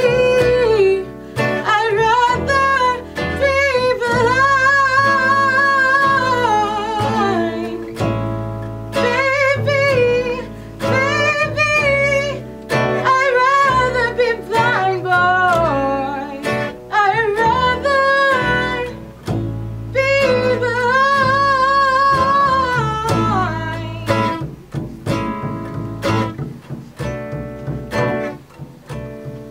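Live acoustic blues-jazz trio: a woman singing long, drawn-out phrases with vibrato over fingerpicked acoustic guitar and upright double bass. The voice drops out about 24 seconds in, and the guitar and bass play on more softly.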